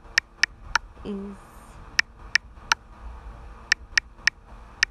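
iPhone on-screen keyboard clicking as letters are typed: about ten short, sharp key clicks in uneven groups of two or three. A brief spoken syllable comes about a second in.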